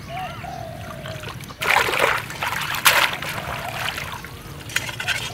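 Splashing and sloshing of hands in shallow, muddy flooded-field water, in two loud bursts about one and a half seconds and three seconds in.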